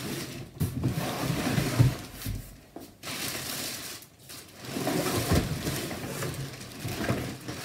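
Plastic wrapping rustling and crinkling and cardboard scraping as a plastic-wrapped stroller is pulled out of its cardboard box, with a few knocks of the frame against the box.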